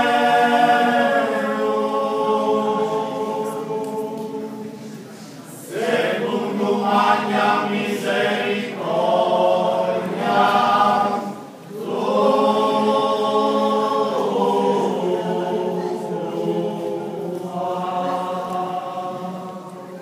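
Small all-male vocal group singing a cappella in close harmony, in long held chords. The singing falls away briefly about six and again about twelve seconds in, before each new phrase begins.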